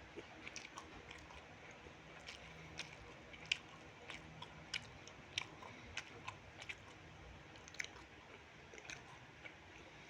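A person chewing food close to the microphone: irregular wet mouth clicks and smacks, about one or two a second, over a faint background hum.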